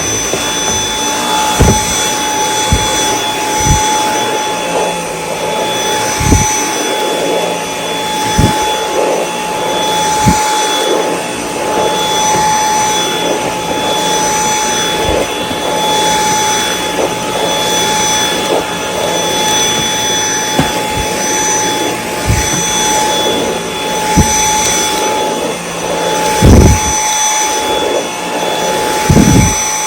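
Dyson V8 Extra cordless vacuum cleaner running steadily, its motor giving a constant high whine, with occasional short low thumps.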